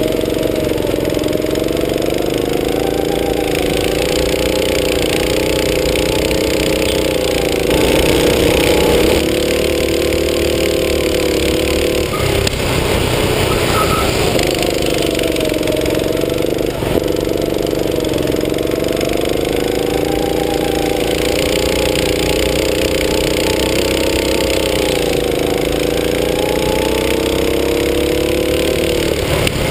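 Go-kart's small petrol engine running under the driver, its note rising and falling with the throttle as the kart laps the track, with brief dips in engine speed about twelve and seventeen seconds in.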